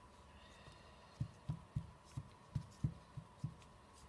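A quick, irregular run of soft, dull thumps, several a second, from about a second in, over a faint steady high hum.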